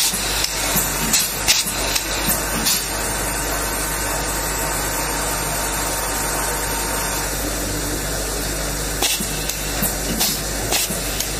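Handheld nylon cable tie machine being worked: sharp clicks in the first few seconds and again near the end, over a steady hiss.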